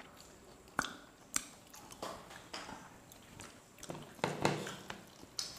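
Quiet eating sounds: chewing, and fingers mixing rice on plates, with scattered soft clicks and taps, the loudest a little over four seconds in.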